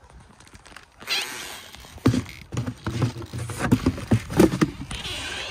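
Close handling noise at a wooden chicken coop: rustling, then a quick run of knocks and thumps on the boards.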